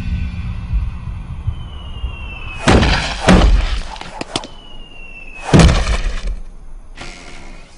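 Two houses falling and crashing to the ground, about three seconds apart. Each crash is a loud breaking smash, led in by a short falling whistle as the house drops, and followed by smaller knocks and clatter.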